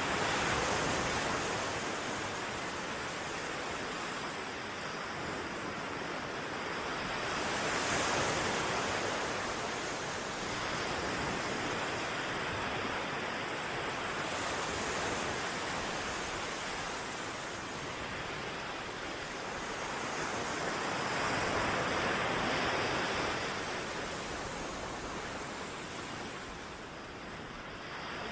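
Surf: waves breaking and washing in, a steady rushing that swells and eases in slow surges every seven or eight seconds.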